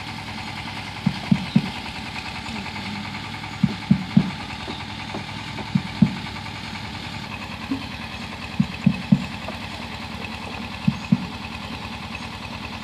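A motor engine running steadily, with a drone that shifts slightly about seven seconds in. Short low thumps come in twos and threes every couple of seconds over it.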